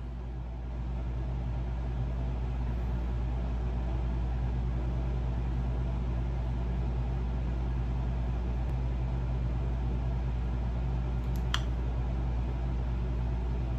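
Air conditioner running in the room with a steady low hum, and a few faint light clicks near the end.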